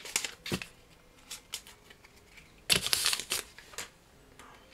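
Crinkling of a booster-pack wrapper and rustling of trading cards being handled, in short bursts: a few near the start, a louder cluster about three seconds in.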